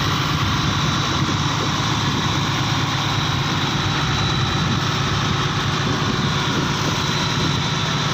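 Fishing boat's inboard engine running steadily, a constant low hum with no change in pace.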